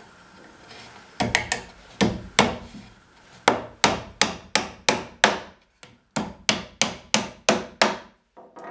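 Claw hammer driving small nails into a wooden nesting box: a few spaced taps to start the nail about a second in, then two quick runs of sharp hammer blows at about four a second, with a short pause between them.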